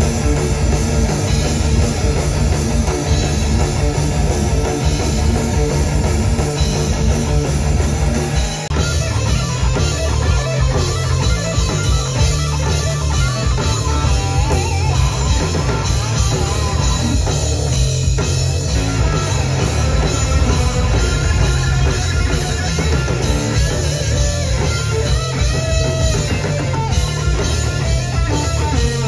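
Live rock band playing loud, heavy music on distorted electric guitar and drum kit. There is a brief break about eight seconds in, then the playing goes on.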